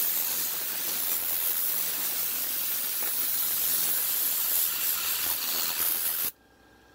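Compressed air blasting from a Vortex cyclone air-blowing tool into a carpeted car floor mat, driving deep dirt up out of the fibres: a steady hiss that cuts off suddenly near the end.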